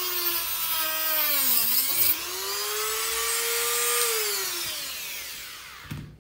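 Corded rotary tool with a cut-off disc running at a high whine. Its pitch dips and it rasps for about two seconds as the disc cuts into the blender's seized drive coupling on the motor shaft. It then runs free and winds down after being switched off, with a short knock at the end.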